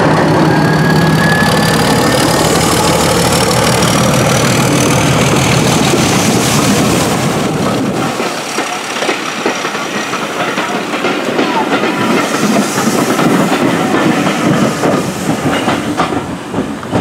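Brush Type 2 Class 31 diesel locomotive No. 5518, with its English Electric engine, running loud as it pulls past with a faint rising whine. After about eight seconds the engine fades and the coaches' wheels click over the rail joints as the train draws away.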